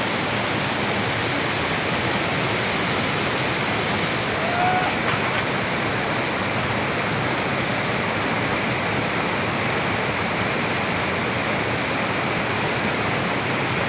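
Water pouring over a dam spillway and cascading down a rocky face: a steady, unbroken rush of whitewater.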